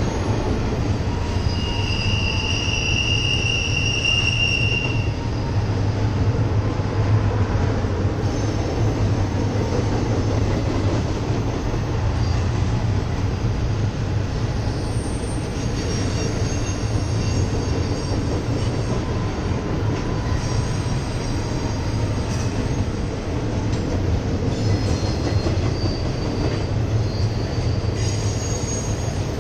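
Freight cars of a long train (double-stack intermodal well cars, then autoracks) rolling steadily across a railroad bridge with a continuous low rumble. A high wheel squeal rings for about three seconds a couple of seconds in, and fainter squeals come and go later.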